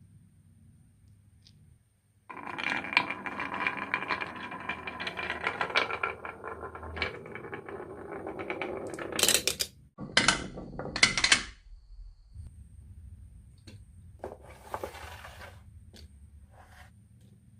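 Marbles rolling and clattering down a wooden marble run: a dense rattle of clicks for about seven seconds, then a few louder clatters, then scattered fainter clicks near the end.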